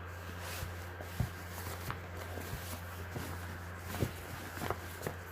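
Swimwear and a bag being handled during packing: light rustling with a few short soft taps and clicks, over a steady low hum.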